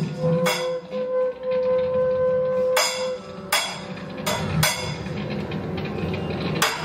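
Live improvised band music with horns, drum kit and keyboards. A single note is held for about three seconds near the start, while sharp percussive hits land at irregular intervals.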